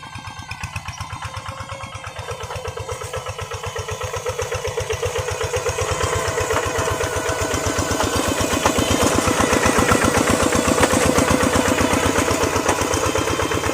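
Two-wheel hand tractor's engine running steadily with a fast, even firing beat, growing louder over the first several seconds and then holding level.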